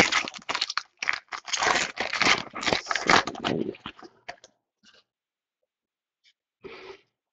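2014 Donruss baseball card pack's plastic wrapper being torn open and crinkled by hand: a dense run of crackling and tearing for about four seconds, then quiet apart from one short crinkle near the end.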